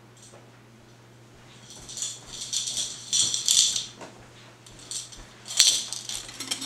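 Coins rattling and jingling in a change jar as it is carried, in several bursts of shaking, with a sharper clink near the end.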